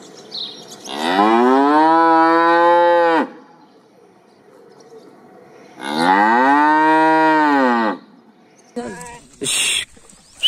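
A cow mooing twice: two long moos about two seconds each, a few seconds apart, each rising slightly in pitch and then falling away. A few brief noises follow near the end.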